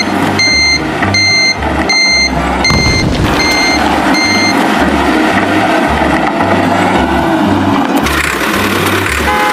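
Reversing beeper sounding a steady beep a bit under twice a second, stopping about four and a half seconds in, over a low truck-engine rumble.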